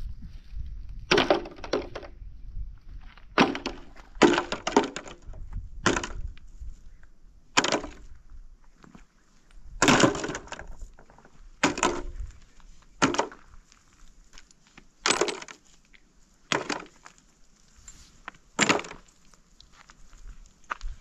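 Wood being struck or broken: about a dozen sharp cracks at irregular intervals of one to two seconds.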